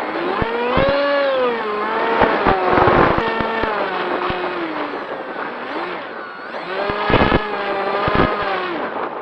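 Electric motor and propeller of a radio-controlled model aircraft whining, its pitch rising and falling repeatedly as the throttle and distance change, with a few brief knocks. It fades near the end.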